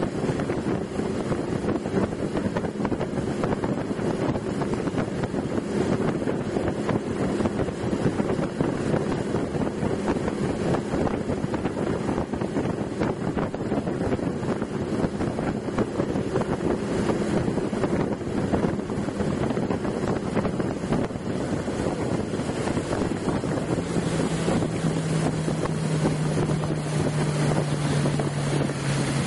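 Motorboat engine running under way on the water, with wind buffeting the microphone. The engine note drops lower near the end.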